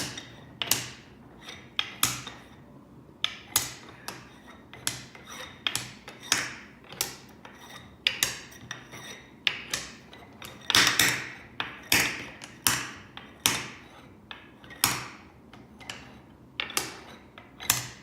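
Wooden beads knocking and clicking together as they are moved by hand, in irregular sharp clicks about one or two a second, each with a short ring.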